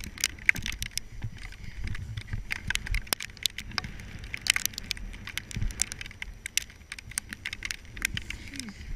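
Camera handling noise: irregular sharp clicks and rattles over a low rumble as the camera is jostled while moving fast over snow.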